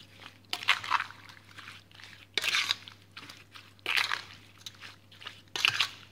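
Plastic-gloved hand squeezing and turning sticky marinated chicken and pork pieces with sesame seeds in a metal bowl. Four wet squelches with a crinkle of plastic come about a second and a half apart.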